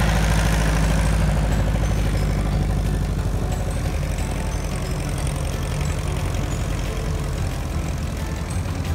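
Piston engine and propeller of a small single-engine bush plane on tundra tyres, running steadily at taxi power as it rolls past.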